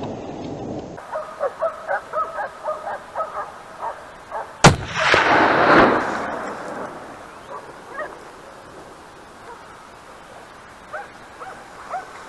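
Hunting dogs barking in quick succession, then a single .308 rifle shot about four and a half seconds in, followed by a second of echo. Fainter barking picks up again near the end.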